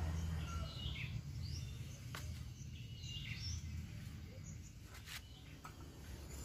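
Birds chirping in short calls over a steady low rumble of outdoor background noise, with two sharp clicks about two and five seconds in.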